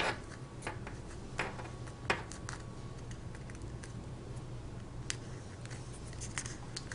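Fingertips and nails picking leftover broken screen-glass fragments off a smartphone's mid-frame: a handful of sharp little ticks and scratches at uneven intervals, over a steady low hum.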